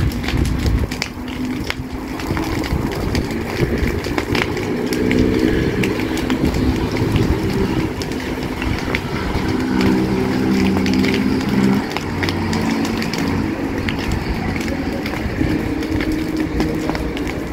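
Dry brush burning, crackling with many sharp pops, over a steady low hum like a vehicle engine running.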